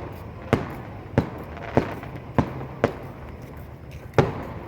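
Fireworks going off: a series of sharp bangs, six in all, coming about every half second to second, with the loudest near the end.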